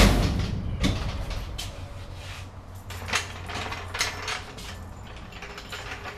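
Clunks and rattles from a heavy snack vending machine being pushed and rocked, loudest in about the first second, then scattered lighter knocks and handling sounds.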